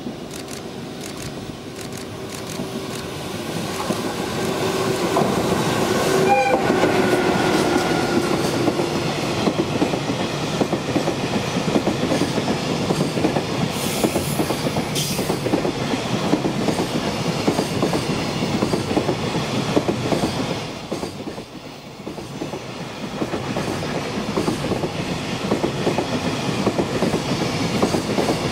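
An EF66 electric locomotive hauling a container freight train approaches and passes. A steady hum dips in pitch as the locomotive goes by, then the container wagons' wheels clatter rhythmically over the rail joints, with a short lull about three-quarters of the way through.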